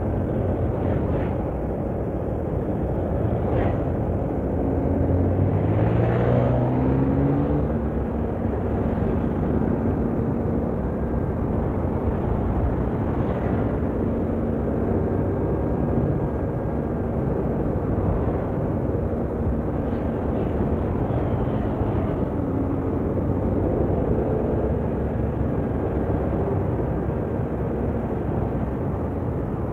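Road and wind rumble from driving in traffic close behind a Mercedes-Benz coach. About five seconds in, an engine's pitch rises as it speeds up.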